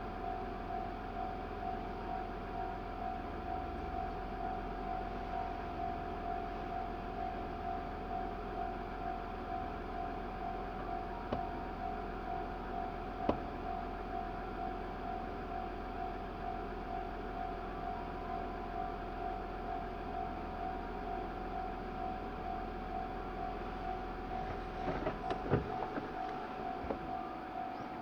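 Japanese level-crossing alarm ringing steadily with its rapidly repeating electronic bell tone, heard from inside a waiting car. A few sharp knocks near the end.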